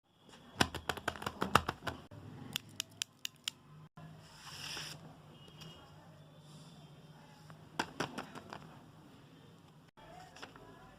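Scissors snipping paper in quick runs of sharp clicks: one flurry in the first two seconds, a few more cuts just after, and another short run about eight seconds in. A brief hiss comes near the middle.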